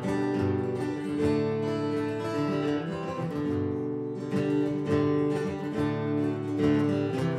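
Acoustic guitar playing an instrumental introduction, a steady pattern of chords at an easy tempo before the vocal comes in.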